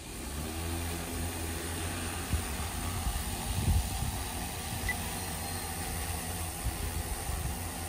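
Hexacopter drone's DJI E2000 motors and propellers running with a steady low hum as it lifts off and hovers low, with a couple of brief low thumps about two and a half and four seconds in.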